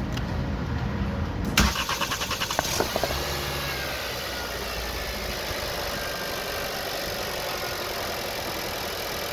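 2021 Nissan Sentra four-cylinder engine being cranked, catching about a second and a half in, firing unevenly for a moment, then settling into a steady idle. This is a no-start, no-fuel car now starting after a missing fuse was replaced.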